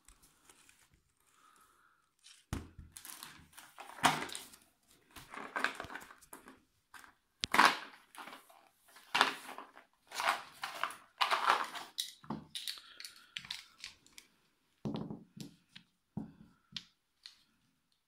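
Small packaging being opened by hand: irregular crinkling, rustling and tearing of plastic and paper wrapping, with a knock about two and a half seconds in.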